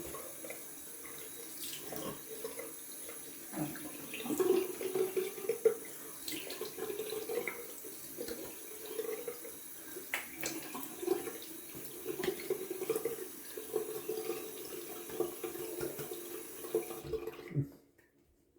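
Cold water running from a bathroom tap into a sink, with irregular splashing as it is scooped onto the face to rinse off the alum. The tap is shut off about a second before the end.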